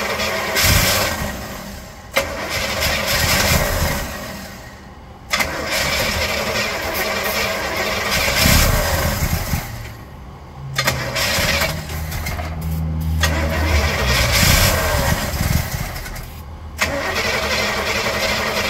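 A Cutlass V8, left standing for 34 years, being cranked over by its starter in repeated runs of a few seconds with short pauses between. It is not yet catching and running.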